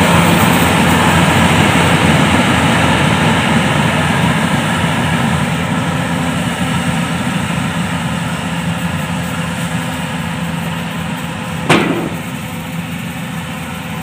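Yanmar rice combine harvester's diesel engine running steadily as the machine harvests, growing gradually fainter as it moves away. A single sharp knock is heard near the end.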